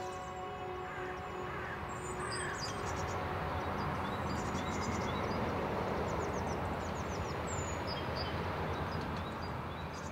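Birds chirping in short, repeated calls over a steady rushing background, while the last held notes of music die away in the first two or three seconds.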